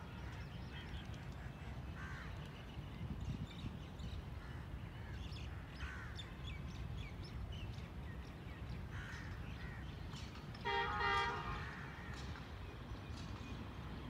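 Faint outdoor ambience: a steady low rumble with scattered short bird calls. About eleven seconds in, a horn sounds once for about a second, the loudest thing here.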